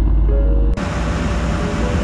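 Background music, then, about three-quarters of a second in, a sudden switch to a motorboat under way: the engine running under loud wind and rushing water.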